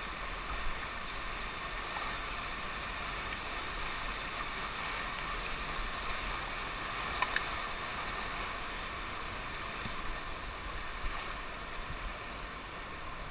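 Rushing whitewater of a river rapid around an inflatable raft: a steady, even hiss of moving water, with a couple of faint ticks.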